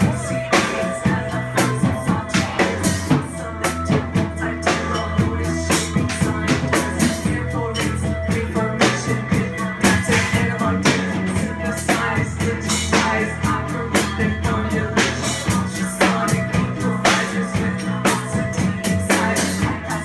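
Live band playing a song: a drum kit keeping a steady beat over electric bass and synthesizer keyboards.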